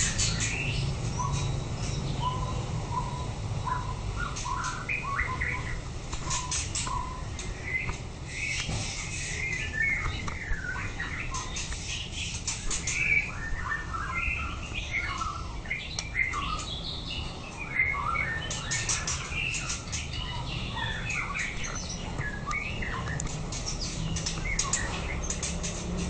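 White-rumped shama singing: a long run of quick, varied whistled notes and glides, broken by bursts of sharp high clicks, over a steady low hum.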